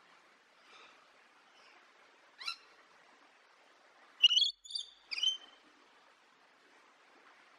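Rainbow lorikeet giving short, high-pitched calls: one a little after two seconds in, then a quick run of three between about four and five and a half seconds in, the first of these the loudest.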